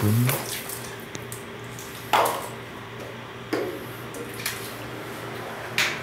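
Hard plastic bath gear being handled in a small tiled bathroom: three sharp knocks and clatters, about two, three and a half and six seconds in, with a lighter tap between them and a faint steady hum underneath.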